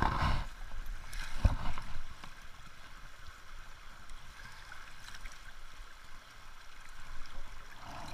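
Shallow river water running, with splashing in the first couple of seconds as a hand and landing net go into the water to release a trout; a single knock about a second and a half in.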